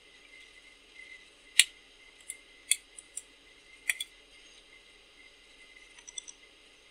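Sharp metallic clicks and taps of a steel digital caliper being handled and set against a metal speedo housing and dash plate. There are about seven clicks in a couple of seconds, the first the loudest, then a few faint ticks, over a steady low background hum.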